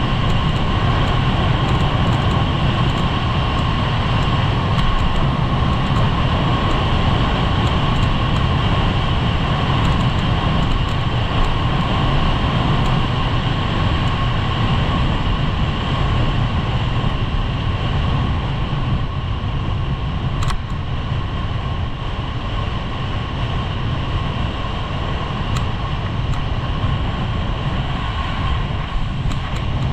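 Skis running fast over hard-packed groomed snow, a steady scraping rush, with wind buffeting the microphone throughout. There is a sharp knock about two-thirds of the way in.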